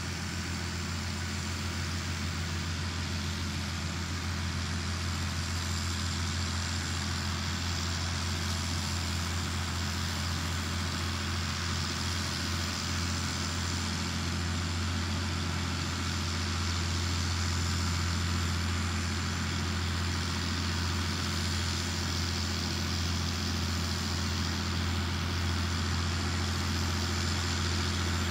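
International Harvester Farmall 1066 tractor's six-cylinder diesel engine running steadily while mowing, a low even drone that grows slightly louder as the tractor comes closer.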